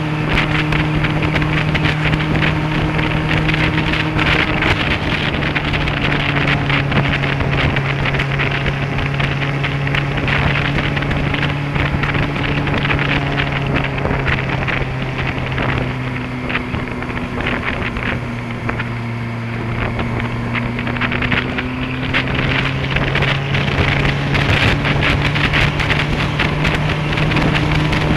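Honda CBF600S inline-four motorcycle engine running at steady cruising revs, with heavy wind rush on the bike-mounted microphone. About halfway through the revs drop for several seconds, then rise again toward the end.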